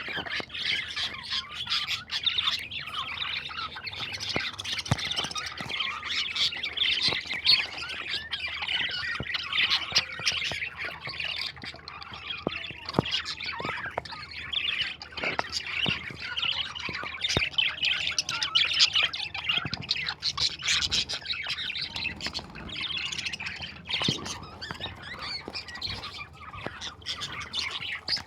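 Many birds calling at once: a dense, continuous chatter of short, overlapping calls.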